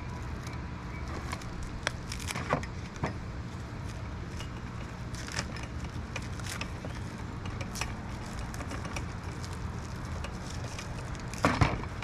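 Plastic wrap being peeled and crinkled off the parts of a new tool, with scattered crackles and rustles and a louder rustle near the end. A steady low rumble of wind on the microphone runs underneath.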